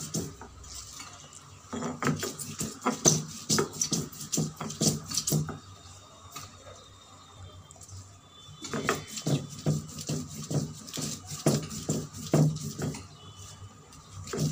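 Stone roller (nora) knocking and rubbing against a stone grinding slab (shil) as wet thankuni leaves are crushed into a paste, in quick repeated strokes. There are two bouts of grinding with a short pause in between.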